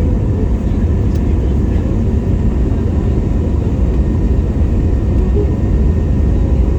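Jet engines of an Airbus A321neo heard from a cabin seat by the wing: a loud, steady low rumble of engine and airflow noise, with a faint steady whine on top.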